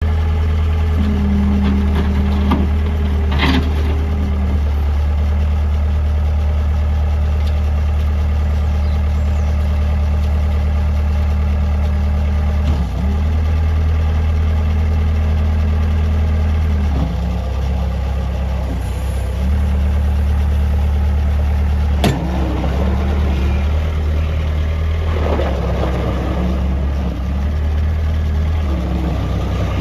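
A Bobcat S150 skid steer's 46 HP Kubota diesel engine running steadily, its note shifting briefly a few times, with one sharp knock a little past two-thirds of the way through.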